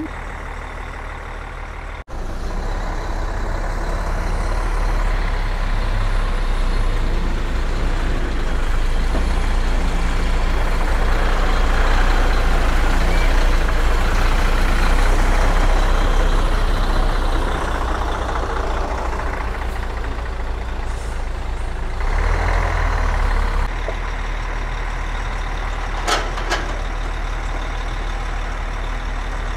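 Heavy truck's diesel engine running close by, swelling steadily louder into the middle and easing off, with a brief louder surge about two-thirds of the way through and a couple of short sharp sounds near the end.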